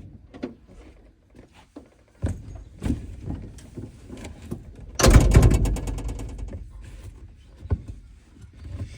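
Scattered knocks and a thunk in a car, then about five seconds in a loud burst with a rapid, even rattle that fades over about a second and a half.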